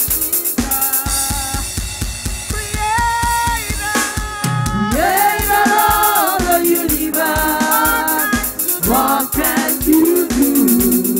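Live gospel music: a drum kit keeps a steady beat with snare, bass drum and hi-hat, under a group of women singing into microphones.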